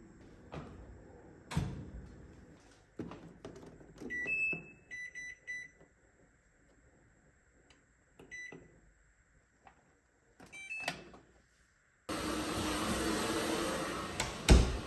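Knocks and clicks of a household appliance being handled, with its control panel giving short electronic beeps, mostly at one pitch with one higher, a few in quick succession about four seconds in and one more about eight seconds in. About twelve seconds in the sound switches to a steady rushing outdoor noise, with a loud thump near the end.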